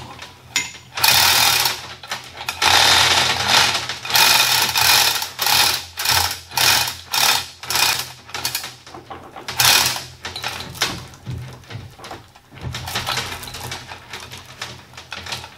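Manual chain hoist worked by its hand chain: steel chain clattering through the hoist block in uneven bursts, one after another with each pull, pausing briefly near the end before starting again.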